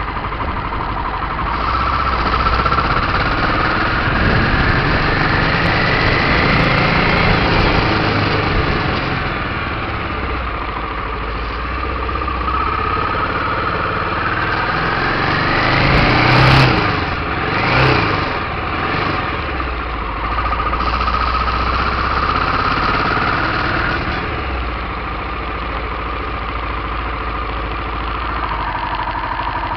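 Aprilia Pegaso 650 Cube's single-cylinder engine under way, its pitch rising in several runs and falling back between them as the bike accelerates and changes gear. Two brief, louder rises in engine note come a little past the middle.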